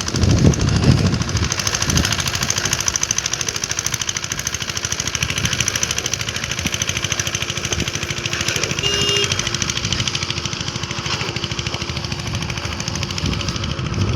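Truck-mounted concrete boom pump running steadily while pumping concrete, its diesel engine and pump giving a fast, even chatter, with a brief high tone about nine seconds in.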